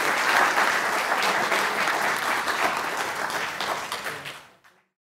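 Audience applauding, a dense patter of many hands clapping that fades away to silence near the end.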